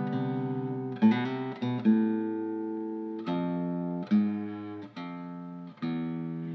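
Background music: acoustic guitar, with chords struck every second or so and left to ring.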